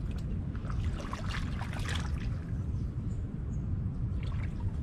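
Shallow water splashing and lapping around the legs of someone wading, mostly from about half a second to two seconds in, over a steady low rumble like wind on the microphone.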